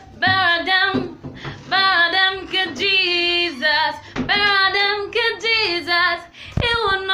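A woman singing solo without accompaniment, in phrases of about a second with held notes and short breaks between them. Near the end a low bump comes as the phone is handled.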